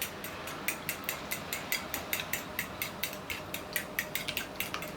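A fork beating eggs in a bowl, clinking against the bowl in a steady rhythm of about four or five strokes a second.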